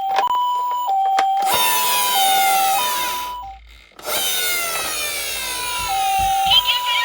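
A toy ambulance's electronic siren sounds a two-tone hi-lo wail, switching between a higher and a lower note about every half second in the Japanese ambulance style. It breaks off briefly just past the middle, then resumes. Twice, a rushing, whirring noise of a toy car rolling down a slope sweeps over it.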